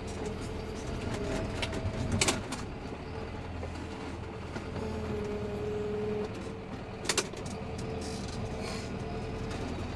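John Deere tractor engine running steadily while it pushes a front-mounted snow plough through fresh snow. Two sharp knocks, about two and seven seconds in.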